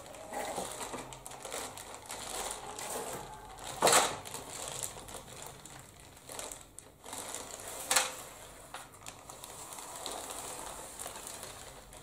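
Clear plastic film crinkling and rustling as it is pulled off a ceiling fan blade, with two sharp, louder cracks about four seconds apart.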